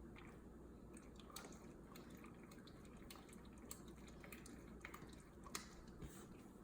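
Faint, irregular wet clicks and drips of liquid, heard as honey and lemon water is being drunk.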